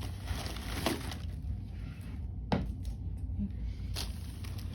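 Cigars and their packaging being handled: soft rustling with three sharp clicks or knocks, about one, two and a half and four seconds in, over a low steady hum.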